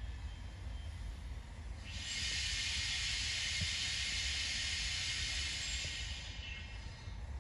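Berlin S-Bahn Class 485 electric train rolling slowly toward the points with a low rumble, and a loud hiss that starts abruptly about two seconds in and dies away after about four seconds.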